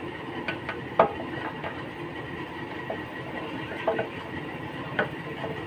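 A few short metal clicks and knocks, the loudest about a second in, as a camshaft with its gear is slid into its bore in the timing-gear case of a 16 hp power tiller engine and the gear is pushed into mesh by hand.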